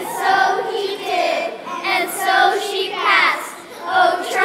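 Children's voices singing together in chorus.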